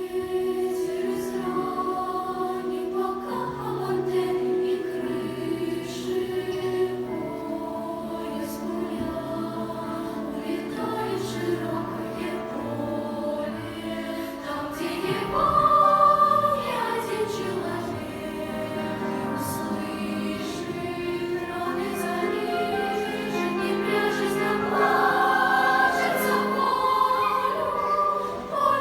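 Choir singing in several parts with long held notes, swelling loudest about halfway through and again near the end.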